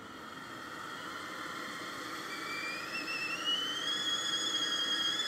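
Stovetop whistling kettle coming to the boil: from about two seconds in, a high whistle rises in pitch, then holds a steady note while growing louder.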